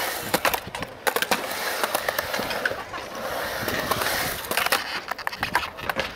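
Skateboard wheels rolling on the concrete of a skatepark bowl: a steady rolling noise broken by many sharp clicks and clacks.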